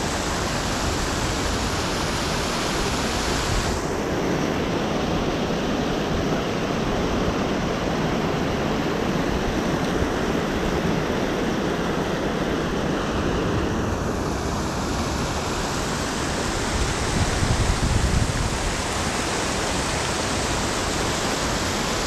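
Water rushing steadily over a concrete spillway edge into a creek pool, with a low wind rumble on the microphone. The hiss of the water turns duller about four seconds in and brightens again about ten seconds later.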